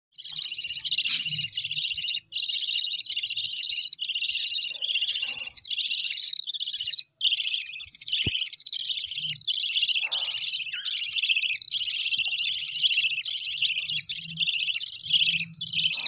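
Budgerigar nestlings chirping non-stop in a fast, high, scratchy run of cheeps, the begging calls of chicks at the nest. The calling breaks off briefly twice, once a couple of seconds in and again about seven seconds in.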